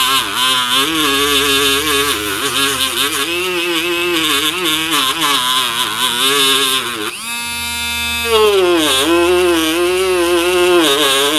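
Small high-speed rotary tool fitted with a felt polishing wheel, running as the wheel buffs a steel knife blade. Its motor whine wavers in pitch throughout, dipping sharply and recovering about nine seconds in.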